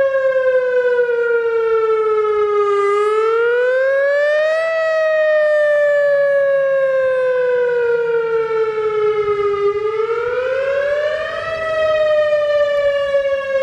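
WS 2000R outdoor warning siren wailing: its pitch slides slowly down, climbs over about two seconds, then slides down again over about five seconds, a cycle heard twice.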